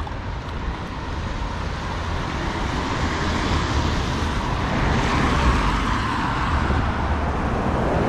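Street traffic: car engine and tyre noise that grows steadily louder as a vehicle comes closer.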